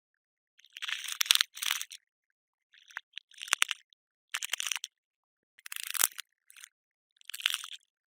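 Cockroach sounds: its legs scraping and scratching in five short bursts of dry crackling, with silence between them.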